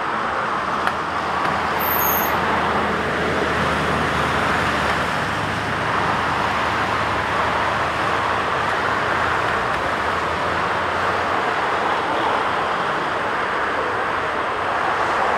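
Boeing 747-400's four turbofan engines at takeoff power as the jet climbs away: a steady, loud jet roar with a low rumble beneath it.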